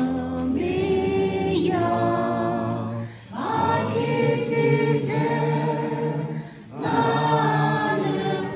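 Church congregation singing a hymn together, many voices holding long notes. The phrases break briefly for breath about three seconds and again about seven seconds in.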